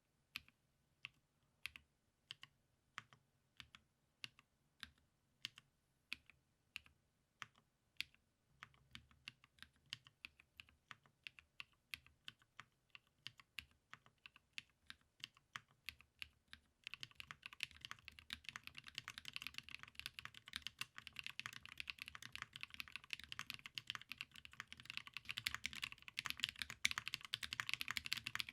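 Custom mechanical keyboard being typed on: a Type K case with Banshee linear switches, a full polycarbonate plate and GMK keycaps. It starts with slow single keystrokes about every half second, picks up pace about a third of the way in, and turns to fast continuous typing a little past halfway, where it is loudest.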